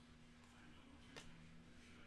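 Near silence: room tone with a faint steady hum and a single soft click about a second in.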